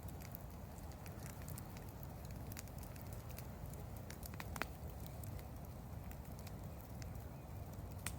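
Wood campfire crackling: scattered sharp pops and ticks over a low steady rumble, with a louder pop about halfway through and another near the end.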